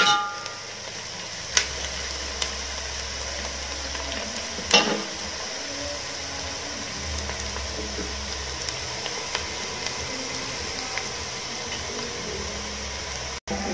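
Sliced onions with rosemary sizzling steadily in a metal pot as they sweat, with two short clinks of a metal spoon against the pot, the louder one about five seconds in.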